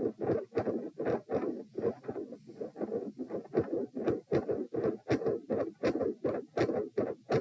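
Human heart sounds recorded on the chest, lying down: a steady, even run of lub-dub beats. The recording is made during a Valsalva manoeuvre (straining against a closed airway).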